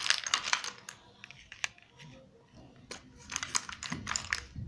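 Melissa & Doug pattern blocks clicking against each other and scraping on a laminated sheet as they are picked up and set in place: a quick flurry of clicks at the start, a single click in the middle, and another flurry from about three seconds in.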